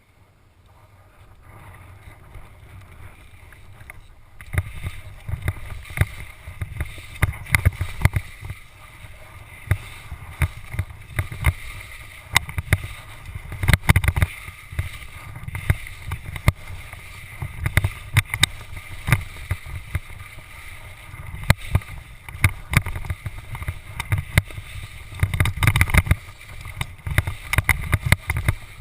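GoPro Hero HD helmet camera chattering in its mount while skiing downhill: rapid irregular clicks and knocks over a low rumble. The chatter starts and gets much louder about four seconds in.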